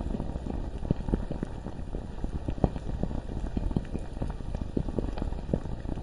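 Bubbling lava ambience: thick molten rock popping and gurgling in dense, irregular little bursts over a low rumble.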